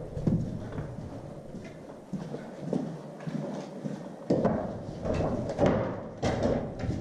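Irregular footsteps, scuffs and knocks of people walking in over a concrete floor strewn with loose boards and debris, busier in the second half.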